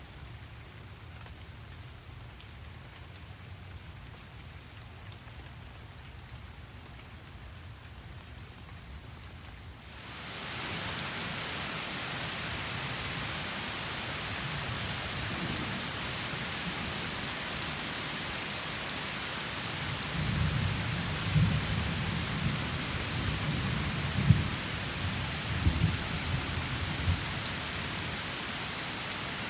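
Rain, faint and low at first, swells suddenly about a third of the way in to a loud, even hiss of heavy rain. Thunder rumbles through the second half, with a few sharper cracks within it.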